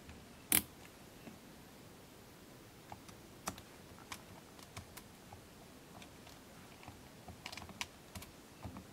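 Plastic keys of a Casio VL-1 (VL-Tone) mini keyboard being pressed, irregular clicks with no note sounding: the instrument is dead. The sharpest, loudest click comes about half a second in.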